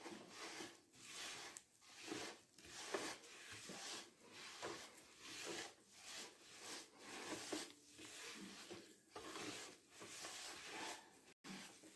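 Faint rhythmic scraping and squishing of a hand working butter into granulated sugar against a glazed earthenware dish, about two strokes a second.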